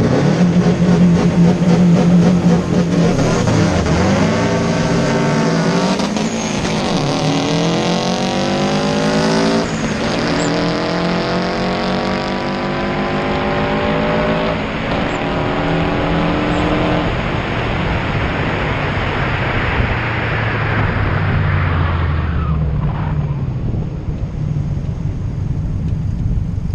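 Subaru WRX's flat-four engine held at high revs, then launching and accelerating hard, its pitch climbing through each gear with upshifts about 6, 10, 14 and 17 seconds in. It then fades into road and wind noise as the car pulls away.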